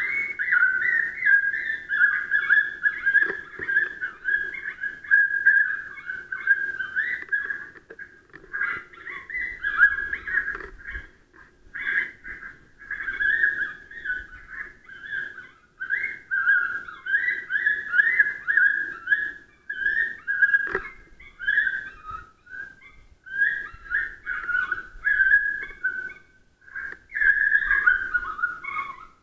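FOXPRO electronic predator caller playing a recorded animal call through its speaker: a high, wavering, whistle-like cry in a long string of short phrases with brief breaks.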